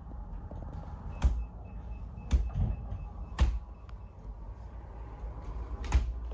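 Four short, sharp knocks over a steady low rumble, the first three about a second apart and the last after a longer gap.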